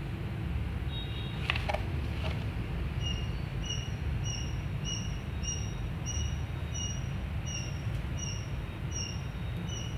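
A short high chirp repeating evenly, about three every two seconds, from about three seconds in, over a steady low rumble, with a few brief rustles in the first couple of seconds.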